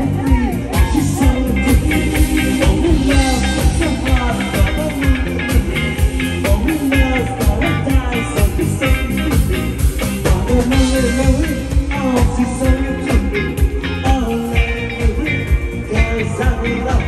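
Live band playing a pop song: a male singer singing into a microphone over electric guitar, bass guitar and drums, with a steady dance beat.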